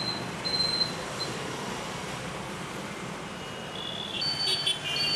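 Road traffic running steadily on a city street, with short high-pitched tones repeating near the start and again near the end.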